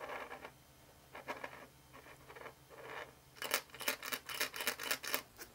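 Steel nuts and bolts of a small welded scrap-metal sculpture rattling and clicking as it is handled, a few soft scrapes at first, then a fast run of light metallic clicks, several a second, for about two seconds past the middle.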